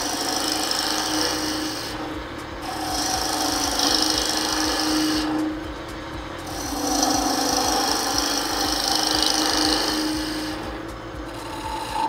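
A wood lathe turns a small wine-stopper blank while a hand-held turning tool cuts it, peeling off shavings with a hissing scrape. The cutting comes in three passes of a few seconds each with short breaks between them, over the lathe's steady hum.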